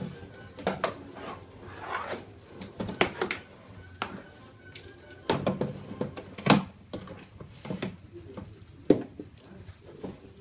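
Irregular knocks, clicks and rubbing of hardware being handled, with the sharpest knocks about six and a half and nine seconds in.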